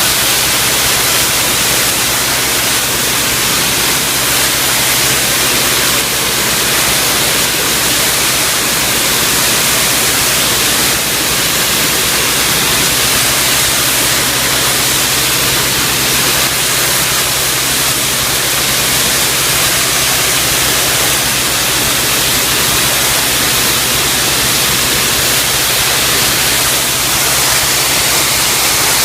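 Pressure washer jet blasting cement paste off retarder-treated concrete to expose the aggregate: a loud, steady hiss of spraying water over a steady low hum.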